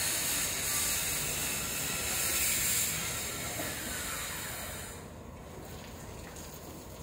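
Water hissing from a hose spraying over a tiled floor. The hiss drops and thins out about five seconds in.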